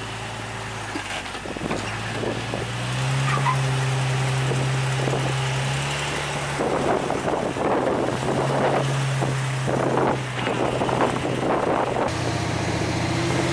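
Off-road vehicle engine running at low revs while crawling slowly over rocks, its pitch and level stepping up about three seconds in. Irregular crunching noises come in the second half.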